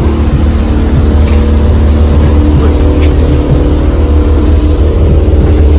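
A vehicle engine running steadily, with a loud, deep rumble and a constant hum above it.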